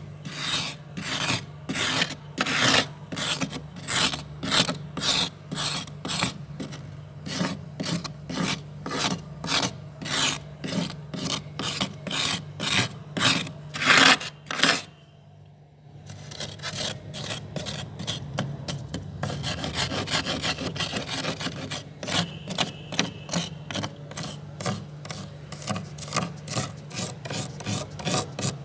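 Metal spoon scraping soft white freezer frost in quick, even strokes, about two to three a second, each a gritty rasp. There is a short pause about halfway, then a few seconds of faster, more continuous scraping before the even strokes resume, over a steady low hum.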